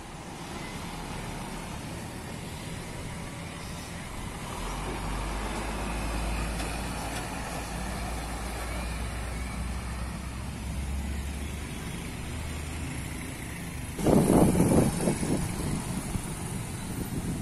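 Trucks and a pickup passing on an asphalt road: a low engine rumble and tyre noise swell as a box truck goes by close. About fourteen seconds in, loud wind gusts buffet the microphone.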